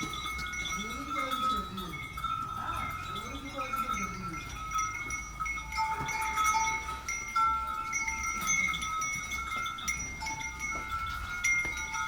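Steady, chime-like ringing of several high tones on a livestock farm, with two drawn-out animal calls, each rising and falling in pitch, in the first four seconds.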